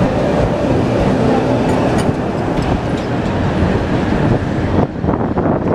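CKD Tatra T4D tram with a B4D trailer passing close by: steel wheels rolling on the rails over a steady hum, with a few sharp clicks about two to three seconds in. Near the end the sound changes abruptly to wind gusting on the microphone.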